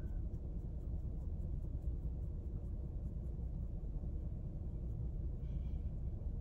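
Steady low rumble inside a parked car's cabin.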